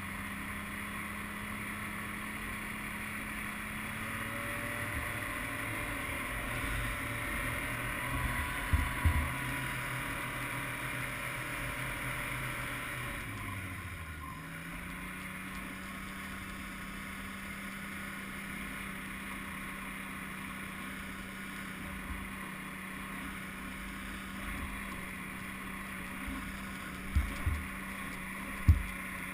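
Snowmobile engine running steadily, its pitch shifting about four seconds in and dropping about fourteen seconds in. A few sharp knocks come near nine seconds and twice near the end.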